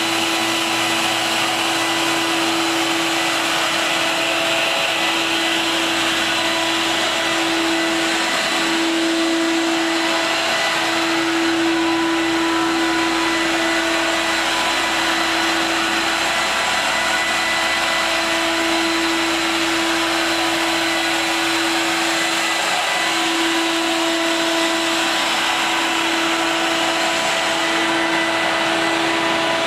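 Ninja Warrior Century 400 portable carpet extractor running steadily: an even vacuum-motor drone with a constant low hum.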